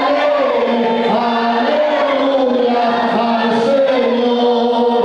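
A group of voices singing together, holding long notes that slide slowly up and down in pitch.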